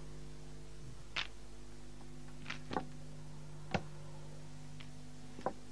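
Mahjong tiles clacking: about six short, sharp clicks at uneven intervals, one pair close together, over a steady low hum.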